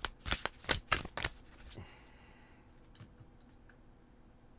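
A deck of tarot cards being shuffled by hand, the cards slapping together in quick strokes about four times a second. The shuffling stops about two seconds in, leaving only faint room noise with a couple of soft clicks.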